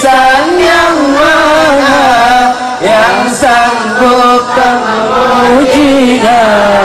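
A sholawat, an Indonesian Islamic devotional song praising the Prophet Muhammad: a voice sings long, drawn-out notes that bend in pitch, over music.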